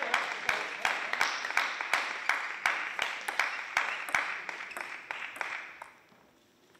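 Hand clapping at a steady beat of about three claps a second, fading out about six seconds in.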